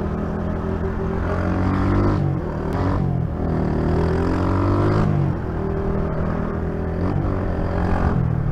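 Honda CG Titan 125 motorcycle's single-cylinder four-stroke engine accelerating, its pitch climbing and then dropping at a gear change about two seconds in and again about five seconds in, then running steadily before picking up again near the end.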